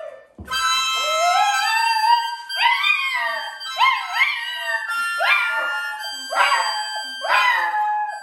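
Dog howling along to music: one long howl rising in pitch, then a run of about six short howls, each starting high and falling, over sustained musical notes.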